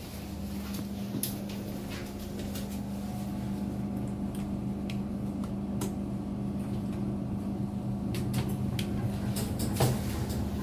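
Steady low hum inside a 1999 Thyssen lift car, with scattered sharp clicks as the buttons on its STEP panel are pressed, and a louder clack near the end as the car's sliding doors begin to close.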